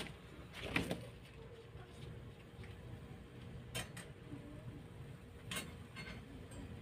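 A few faint, scattered clinks and knocks of kitchen utensils being handled, the most distinct about a second in, over a low steady background hum.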